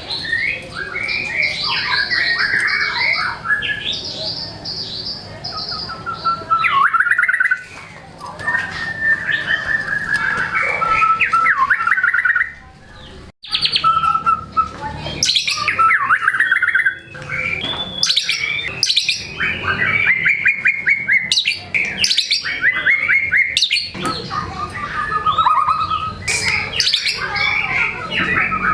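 White-rumped shama (murai batu) in full song, pouring out a fast, varied string of whistled phrases and rapid trills. This is the long, varied repertoire of a bird in peak singing form. The song breaks off briefly twice.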